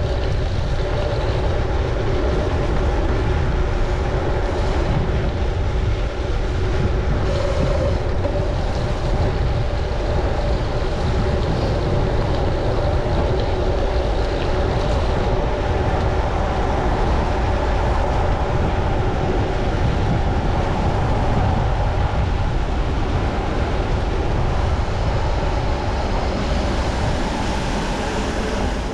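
Steady riding noise from a bicycle on wet city streets: a loud low rumble of wind and road noise on the microphone, with a few steady humming tones under it.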